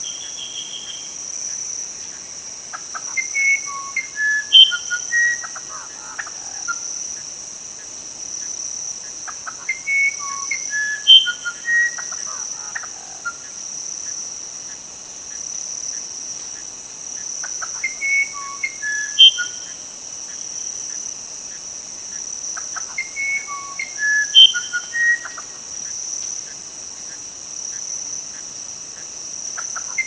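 A small forest songbird sings a short phrase of clear whistled notes four times, about every six to seven seconds. The song sits over a steady, shrill insect chorus.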